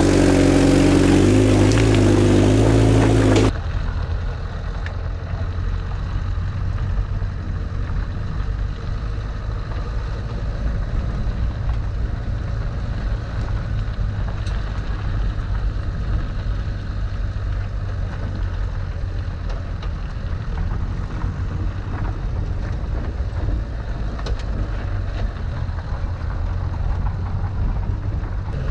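Land Rover Santana 109 engine running steadily. About three and a half seconds in it cuts from a louder, higher-pitched run to a quieter, steady low rumble.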